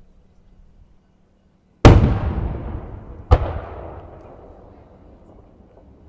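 Two loud bangs from aerial fireworks shells about a second and a half apart, the first the louder, each followed by a long rolling echo that fades away.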